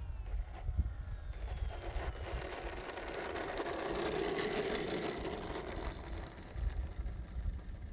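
Small model airplane's nose propeller and motor running as the plane taxis close past and away, swelling from about two seconds in, loudest around four to five seconds in and fading by six seconds. A low rumble of wind on the microphone runs underneath.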